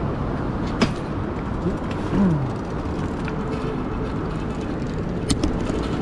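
Electric cargo bike rolling off over paving against steady city traffic noise, with a faint rub from the front mudguard touching the tyre and a couple of sharp clicks, one about a second in and one near the end.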